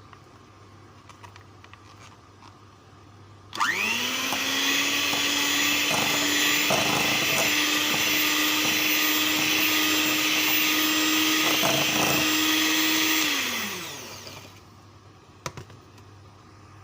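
Electric mixer with beaters creaming butter and brown sugar: the motor starts about three and a half seconds in, its whine rising quickly to a steady pitch, then is switched off and winds down near the end, followed by a few light clicks.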